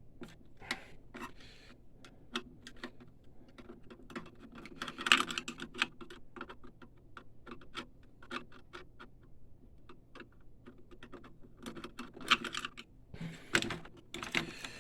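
Irregular small clicks, taps and rattles of a screwdriver, screws and metal and plastic parts being handled as the pump is taken out of a DTG printer, with louder clatters about five seconds in and again near the end.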